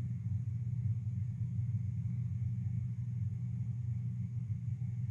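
Steady low background hum in a quiet room, with no distinct footsteps, creaks or knocks standing out.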